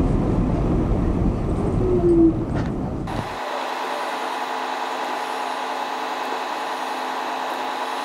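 New York City Subway A train rumbling on the rails, with a short whine about two seconds in. About three seconds in the sound changes abruptly to the steady hum of an idling MTA city bus.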